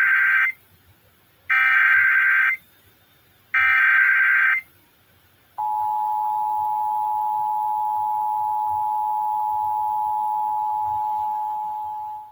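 Emergency Alert System SAME header: three one-second bursts of digital data tones, the first already under way. After a short gap comes the EAS two-tone attention signal, a steady dual tone of about 853 and 960 Hz held for several seconds and tapering off near the end.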